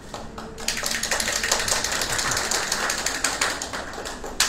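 Audience applauding: a dense patter of claps that starts about a second in and dies away, with a single sharp click near the end.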